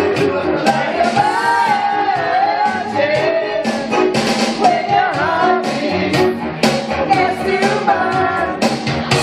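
A song playing, with a lead voice singing over a band backing that has a steady beat.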